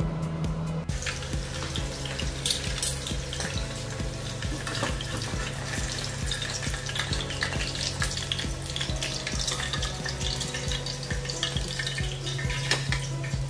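An egg frying slowly in oil in a pan, a steady sizzling hiss with small crackles that starts about a second in, over background music with a steady beat.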